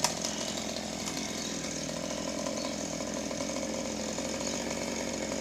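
Chainsaw running steadily with an even engine tone, with one sharp click at the very start.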